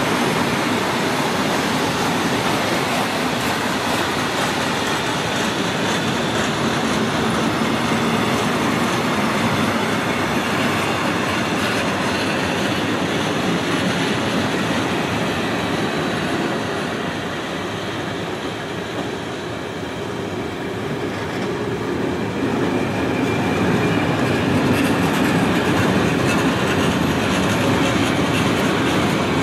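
Open-top freight wagons of a long goods train rolling past at close range: a steady rumble with wheels clattering over the rails, briefly a little quieter just past halfway.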